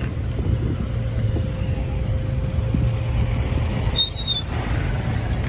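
Street traffic: the steady low rumble of passing vehicle engines, with a brief high squeak about four seconds in.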